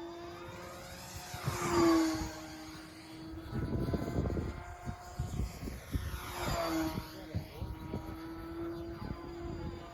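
Engine of a Brodak Ringmaster control-line stunt plane running steadily as it flies laps on its lines, its pitch rising and falling each time it sweeps past, twice: about 2 s in (the loudest moment) and again about 6.5 s in. Wind rumbles across the microphone throughout.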